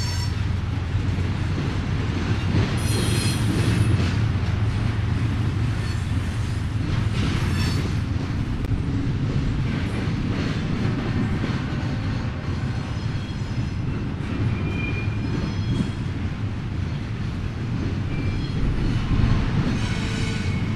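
Freight train rolling past with a steady heavy rumble of railcars on the track. The wheels let out a few brief high-pitched squeals.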